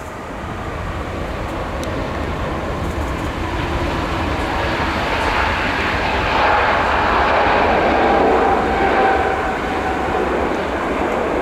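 Airbus A321 jet engines on the landing roll: a loud, rushing roar with a whine in it. It grows over the first six seconds or so and then holds.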